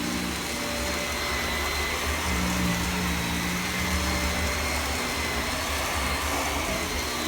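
Household vacuum cleaner running steadily: a rush of air with a thin motor whine and a low hum that grows stronger about a second in.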